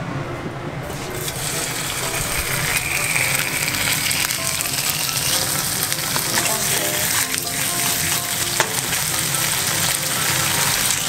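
Slices of block bacon sizzling in hot olive oil in a frying pan. The sizzle starts suddenly about a second in, as the slices hit the oil, and then carries on steadily.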